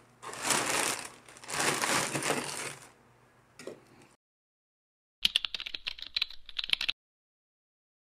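Plastic courier mailer pouch crinkling as it is handled, in two bursts over the first three seconds. After a silent gap, a rapid run of keyboard-typing clicks lasts under two seconds.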